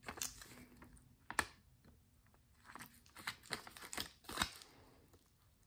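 Faint, scattered clicks and soft crinkling from plastic press-on nail tips and a clear plastic sheet of adhesive tabs being handled, with one sharper click about a second and a half in.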